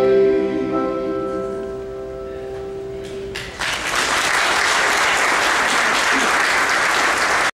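The last held chord of a Southern gospel medley fades away, and about three and a half seconds in a church congregation breaks into steady applause.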